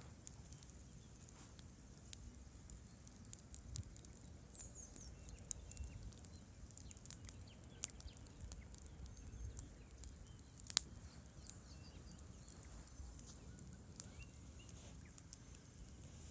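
Bonfire crackling: irregular sharp pops and snaps over a low steady rush, with one louder pop about eleven seconds in.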